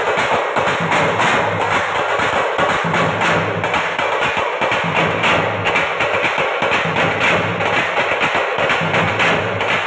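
Thappu (parai) frame drums beaten with sticks in a fast, dense, continuous rhythm.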